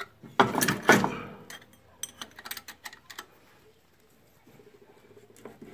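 Metal clinking and knocking as a Toyota 8.4-inch differential carrier, with its bearing races and shims, is handled and seated into the differential housing. There is a loud clatter in the first second or so, then a few lighter ticks.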